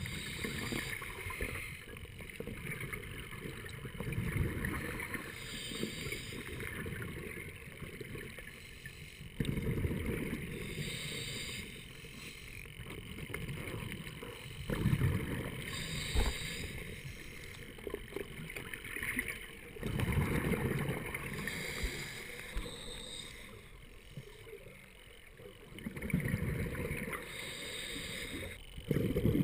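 Scuba diver breathing through a regulator underwater: exhaled bubbles gurgle and rush in bursts about every five seconds, with a fainter hiss of inhalation in between.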